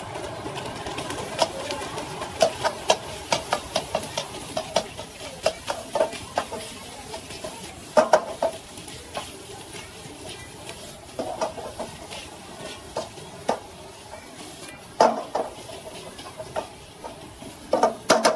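Metal spatula clanking and scraping against a wok as food is tossed and stirred over the fire, over a steady sizzle. The strikes come thick and fast at first, then more sparsely, with a few harder knocks later on.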